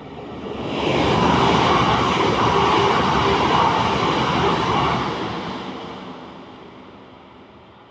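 A train passing by: its running noise swells about a second in, holds loud for about four seconds, then fades away.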